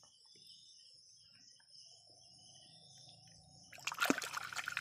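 A hand splashing and churning the shallow water of a rocky stream near the end, grabbing for a shrimp under a rock. Insects chirr steadily behind it.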